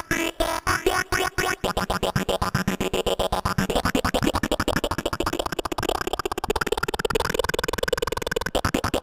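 Teenage Engineering OP-1 synthesizer playing an electronic preset: evenly spaced rhythmic pulses that switch, about one and a half seconds in, to a much faster stuttering pulse.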